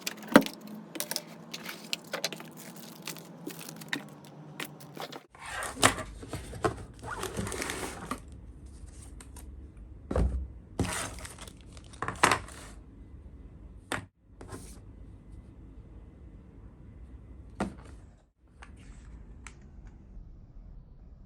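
Unboxing handling sounds: packaging rustling and crinkling, and scattered clicks and knocks as the box and the keyboard are handled, broken into several short clips.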